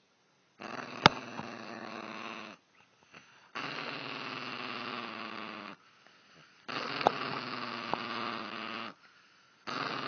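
Small black-and-tan dog growling in long, steady rumbles of about two seconds each, four in a row with a short pause for breath between them. A sharp click about a second in and another about seven seconds in.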